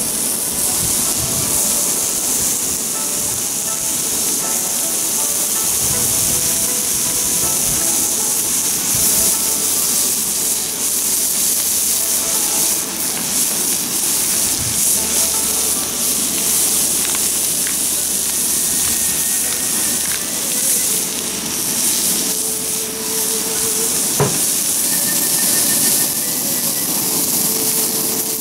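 Slices of fatty pork tongue sizzling on a hot iron griddle plate over a gas cartridge stove: a steady, dense frying hiss, with one sharp tap about three-quarters of the way through.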